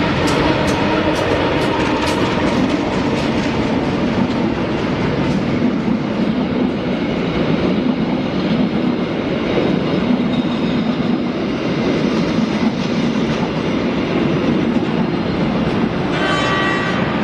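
A train passing close by, its wheels clicking over rail joints in the first couple of seconds, over a steady rumble and drone. A short pitched tone sounds near the end.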